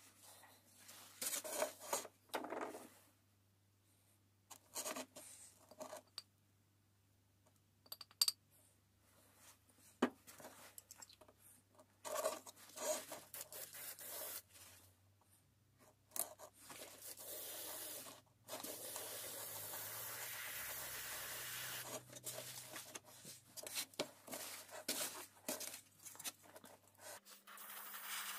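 Airbrush spraying paint in short bursts of air hiss, then one longer steady spray of about three seconds past the middle, with paper towel rustling and handling scrapes between the bursts.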